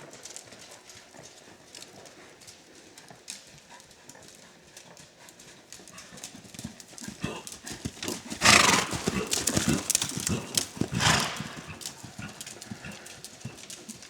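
A horse's hoofbeats at the canter, a run of soft thuds. Past the middle come two louder rushing noises about two seconds apart.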